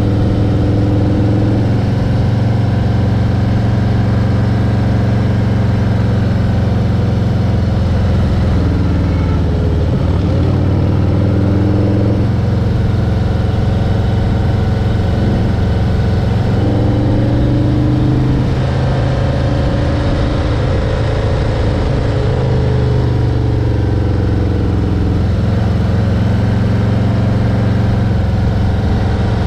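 A vehicle engine running steadily, its pitch dipping and rising again a few times as the engine speed changes.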